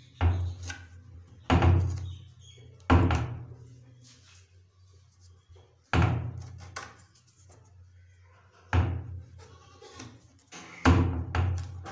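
A series of dull thumps and knocks against a wooden door, about six at irregular intervals, each fading away over about a second.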